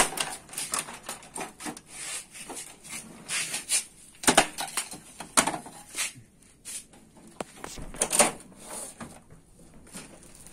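Plastic front door and inner drawer of a Canon imageRUNNER copier being unlatched, opened and pulled out. An irregular run of clicks and knocks with plastic scraping between them, the sharpest at the very start and about four, five and eight seconds in.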